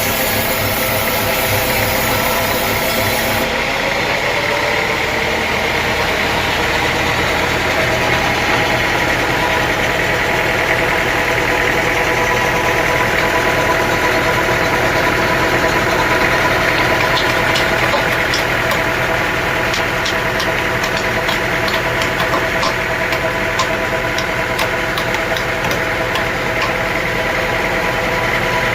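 Sawmill machinery running steadily with an engine-like hum. The sound shifts about three and a half seconds in and rises slightly in pitch, then holds steady, with faint scattered ticks in the second half.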